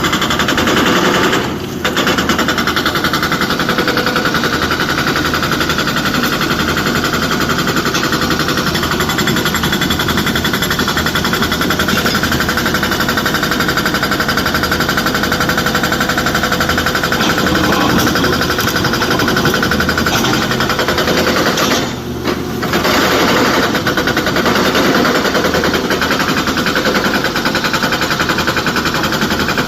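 Excavator engine running hard, with a loud continuous rattling clatter that dips briefly twice, about two seconds in and again near the end.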